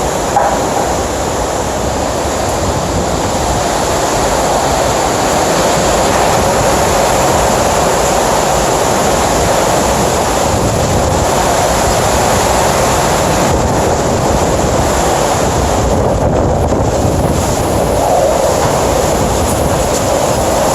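Hurricane-force wind blowing hard, a dense, steady rush without letup, with a brief knock about half a second in.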